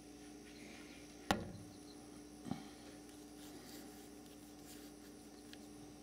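Handling noise from a handheld camcorder as it pans: a faint steady hum and hiss, with a sharp knock a little over a second in and a softer one about a second later.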